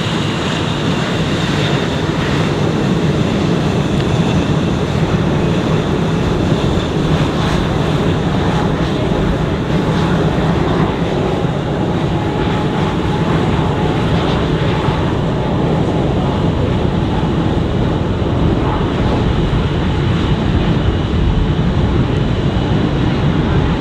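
Boeing F/A-18 Hornet jet engines running at ground idle: a steady rushing noise with a faint high whine.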